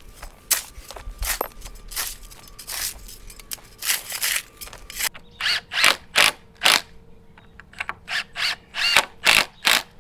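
Hand tools scraping and spreading wet concrete: irregular short scraping strokes, a couple per second, over a faint steady hum.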